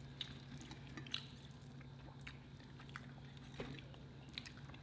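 Quiet chewing of fried catfish, with soft wet mouth clicks every half second to a second over a steady low hum.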